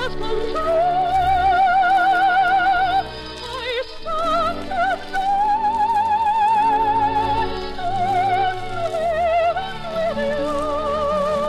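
Operetta music: a high voice holds long notes with wide vibrato over orchestral accompaniment, with a brief drop in level about three seconds in.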